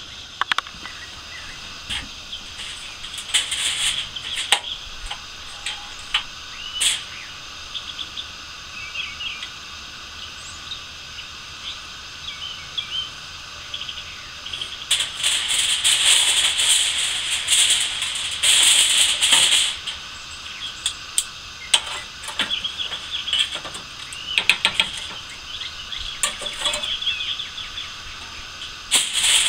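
Aluminum foil crinkling and rustling in bursts as it is handled, with sharp clicks from metal tongs; the longest, loudest crinkling comes a little past the middle.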